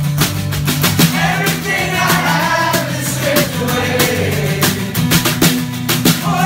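Rock band playing live: several voices singing together over acoustic guitar and steady low notes, with frequent sharp percussion hits.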